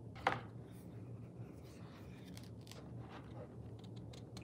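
A picture book's page being turned by hand: a quick paper swish about a quarter second in, then soft rustling and a few light ticks as the page is laid flat.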